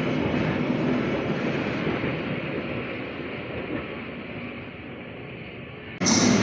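London Underground 1996 Stock Jubilee line train pulling out of an open-air platform, its running noise fading steadily as it draws away. About six seconds in, the sound cuts abruptly to a louder rumble on a deep-level tube platform as another train approaches in the tunnel.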